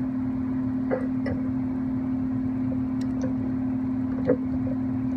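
Steady low electrical or mechanical hum held at one pitch, with a few light clicks and knocks of parts being handled; the loudest knock comes about four seconds in.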